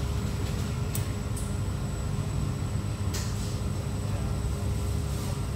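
Steady low rumble of restaurant room noise with a thin steady hum, and a couple of faint clicks about one and three seconds in.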